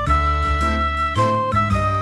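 Background music: held melody notes changing about every half second over a steady bass line.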